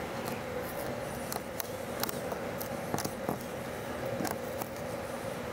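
Scattered light crackles and taps of black vinyl wrap film being handled and pressed by hand onto a car's grille trim, over a steady low hum.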